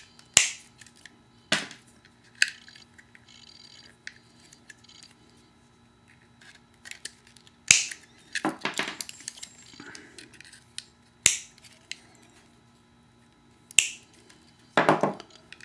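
Sharp snips of diagonal cutters trimming the model's motor wires, with scattered clicks and rustles of the tools and wired rotor-mast parts being handled on a wooden workbench.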